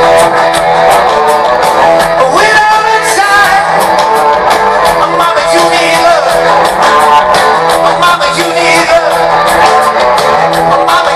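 Loud live rock band playing on a concert stage, heard from far back in the audience.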